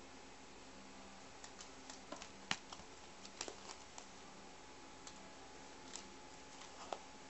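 Faint, scattered light taps and rustles, about eight in all and the loudest about two and a half seconds in, as a ragdoll cat paws at a plastic uchiwa hand fan and shifts in a cardboard box, over a faint steady hum.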